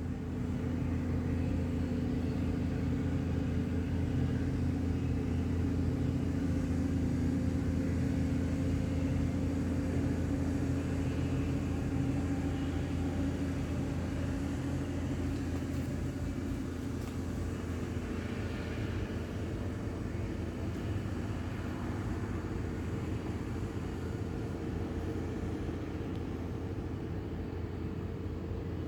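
An engine running steadily, a low droning hum with a steady pitch that eases slightly past the middle.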